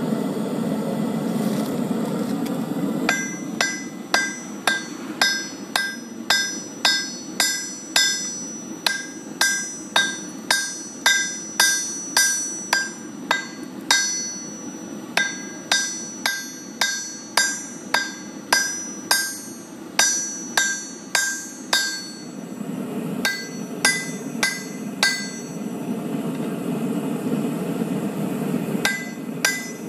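Hand hammer striking a red-hot billet of patterned steel on an anvil, about two blows a second, each blow ringing the anvil: forge welding the layers together. The hammering starts a few seconds in, pauses briefly midway, thins out after about two thirds, and picks up again near the end. Under it runs the steady rushing noise of the forge.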